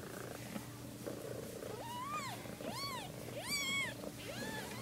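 Newborn kittens mewing: about four high, thin cries, one after another, starting about two seconds in, each rising and then falling in pitch, over a faint steady low hum.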